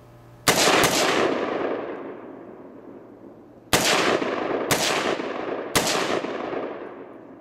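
AR-15 semi-automatic rifle firing its last rounds until the magazine runs empty: five shots, each followed by a long fading echo. The first two come close together, and after a pause of about three seconds come three more, spaced about a second apart.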